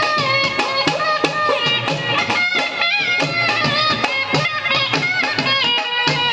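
Indian folk-style music: an ornamented, bending melody over a steady drum beat.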